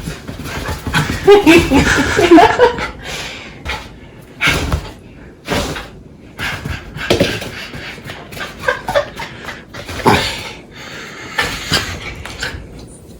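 A dog panting and snuffling close up, with a burst of high, wavering yips or whines about a second in.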